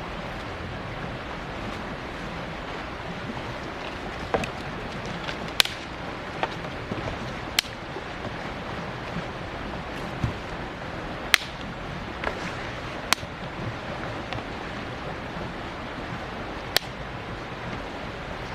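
Steady rushing noise with sharp clicks or snaps at irregular intervals, roughly one every second or two.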